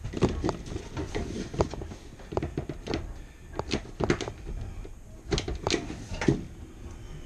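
Hands working at the dryer's vent connection and its metal mounting bracket in a tight gap behind the dryer: irregular sharp clicks, knocks and light metal rattles, with two busier clusters in the second half.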